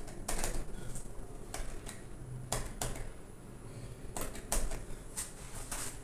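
Mitsubishi elevator car-panel pushbuttons clicking as they are pressed, several sharp clicks at uneven intervals in the small steel car.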